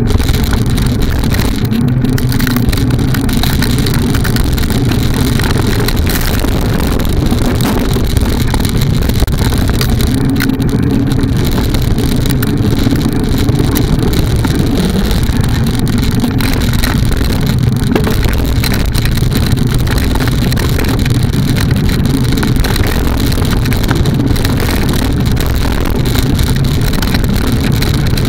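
Mountain bike riding a dirt singletrack, heard through a bike-mounted camera: steady, loud wind buffeting on the microphone and low rumble from the tyres and frame on the rough trail, with a few small knocks.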